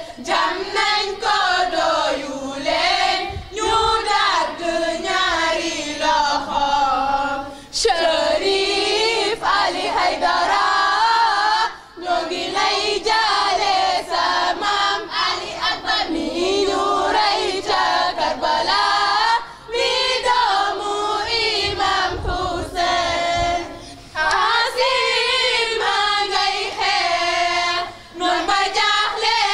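A group of girls and women singing a latmiya, a Shia mourning chant for Imam Hussein, together in phrases of about four seconds with brief breaks between them.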